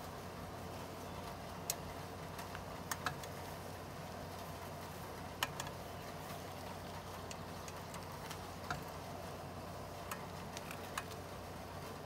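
Scattered light metallic clicks, a second or more apart, as a long twisting wrench turns a red-hot Damascus steel bar clamped in a fixture, over a steady low hum.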